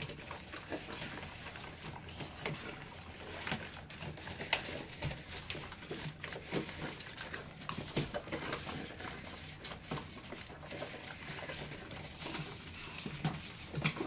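Irish Wolfhound puppies eating together from a metal bowl: irregular chewing and mouthing of food, with frequent small clicks and knocks against the bowl.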